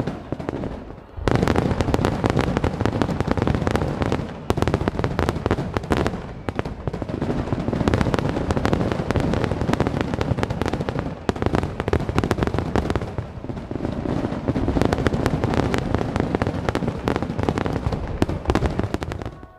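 Aerial fireworks bursting overhead: a dense, continuous run of bangs and crackling from many shells at once, with a short lull about a second in. The sound cuts off suddenly near the end.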